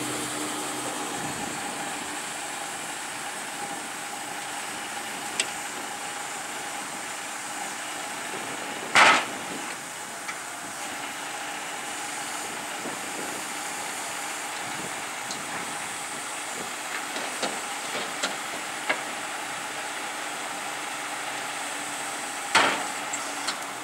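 Metal loading ramps of a flatbed lorry clanging as they are handled. One loud clang comes about nine seconds in, a second near the end, and a few lighter clanks fall between them, over a steady engine hum.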